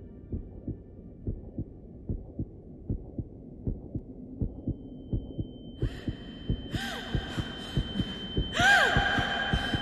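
Heartbeat sound effect: low thumps, paired at first and quickening toward the end. About halfway through, a steady high ringing tone enters, and hissing swells with sweeping tones build over it near the end.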